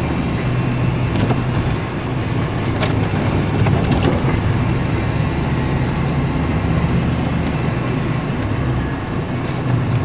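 A motor vehicle's engine running steadily, a low even hum under a constant hiss.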